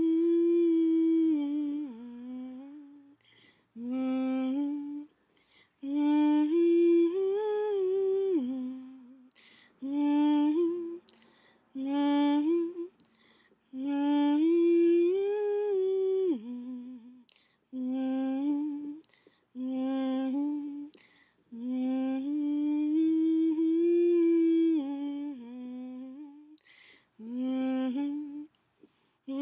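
A person humming a wordless tune in short phrases of a second or two each, with brief breaks between them.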